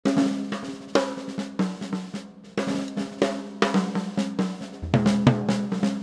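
Jazz drum kit played solo: a busy run of sharp snare and tom hits with bass drum and hi-hat. A low steady tone comes in under the drums near the end.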